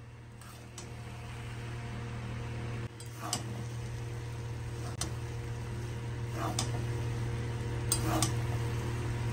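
Metal spatula scraping and clinking against a steel kadai as fried rice is stirred, about eight short knocks spread through the stirring, over a steady low hum.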